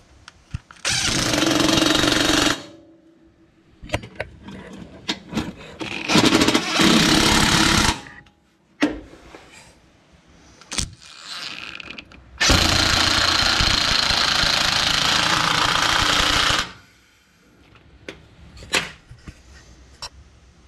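Cordless power driver with a Torx T40 bit running the screws that hold a charcoal canister into a truck's frame rail. There are three runs: two short ones of about two seconds, then a longer one of about four seconds. Light clicks and knocks come between the runs.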